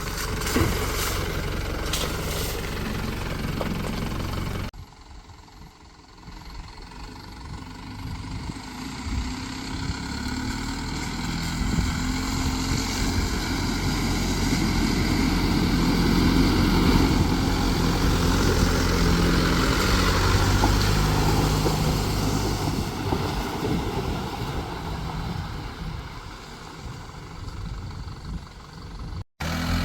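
A 2002 Holden Rodeo's 2.8 litre turbo diesel engine running while driving off-road, its revs rising and falling. There is a sudden cut about five seconds in, after which the sound starts quieter and grows louder towards the middle before easing off.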